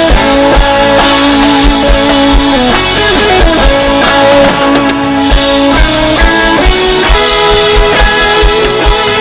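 Rock music with guitar and a drum kit: sustained held notes over a steady kick-drum beat.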